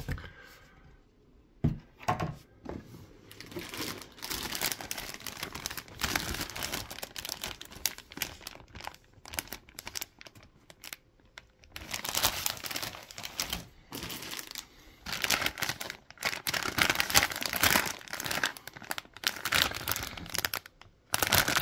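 Clear plastic bags holding model-kit sprues crinkling and rustling as they are handled, in irregular bursts of crackle with a short pause about halfway through.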